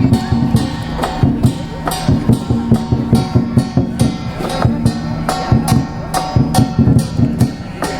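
Lion dance percussion: a big drum beaten in a fast, driving rhythm with clashing cymbals ringing over it.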